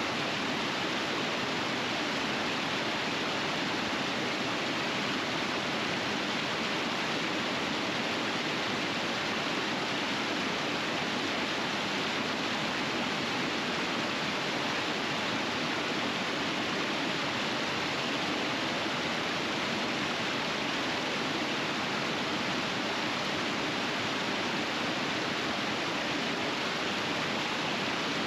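Rapids on a small river rushing and splashing over rocks in a steady, unbroken rush.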